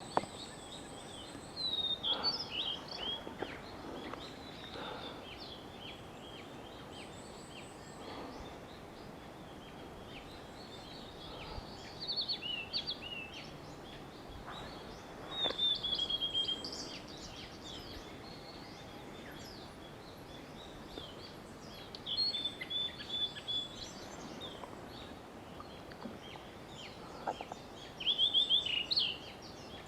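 Blue-and-white flycatcher (Ōruri) singing close by: about five loud phrases of clear, quickly gliding whistled notes, a few seconds apart, over a steady background hiss.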